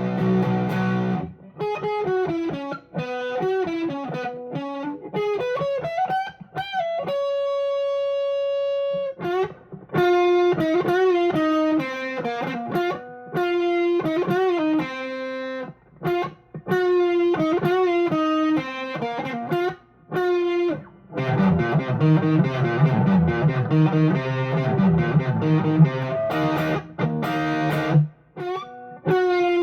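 Electric guitar played through a JHS Angry Charlie overdrive pedal into a Vox AC10 amp, with a higher-gain rock tone. It plays single-note lines with string bends, holds one long note about seven seconds in, and moves to chords near the end.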